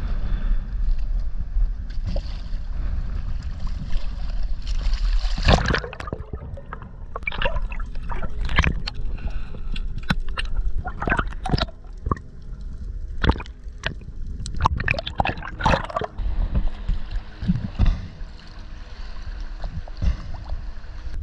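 Water and wind noise around an inflatable boat, then a sharp rush of water about five seconds in as a diver goes into the sea. After that come muffled underwater sounds: bubbling with many scattered sharp clicks and crackles, giving way near the end to steady water sloshing at the surface.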